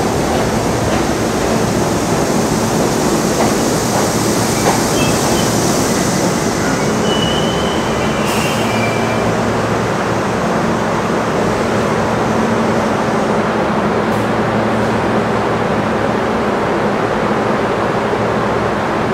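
R42 subway train pulling into the station and braking to a stop: a loud, steady rumble of wheels on rail, with a brief high wheel squeal about eight seconds in.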